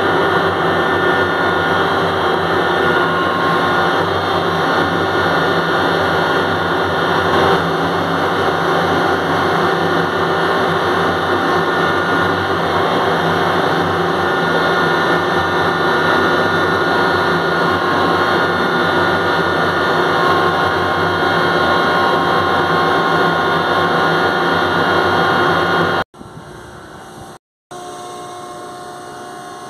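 Ship's crane motor running steadily: a loud mechanical hum with several constant whining tones. Near the end it cuts off abruptly, leaving a quieter, lower hum.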